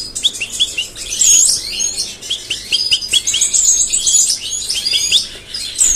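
Small cage birds chirping and singing: quick runs of short high chirps, several a second, over a higher trilling song.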